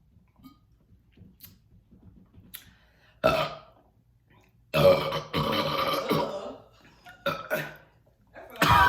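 Loud human burps brought up by fizzy kombucha just drunk: a short burp about three seconds in, then a long drawn-out burp of about a second and a half, a few short ones, and another loud one at the end.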